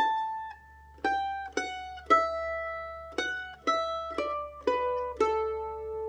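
Mandolin picked one note at a time, slowly, each note ringing and fading before the next. In the second half the notes step down in pitch.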